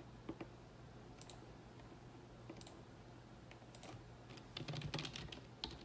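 Faint typing: scattered key clicks, with a quicker run of taps about four and a half to five and a half seconds in, as a short message is typed.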